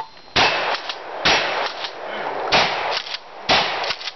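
Shotgun fired four times, about one shot a second, each shot followed by a few short clicks and clanks.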